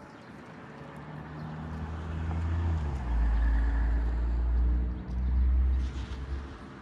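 A motor vehicle engine with a low rumble, rising in pitch over the first few seconds, loudest in the middle and fading near the end.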